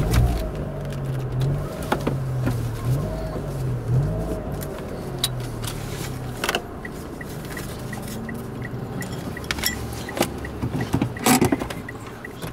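Car interior noise while driving, with a low pitch that wavers up and down for the first several seconds. About halfway in, the turn-signal indicator starts ticking about twice a second, and there are a few knocks near the end.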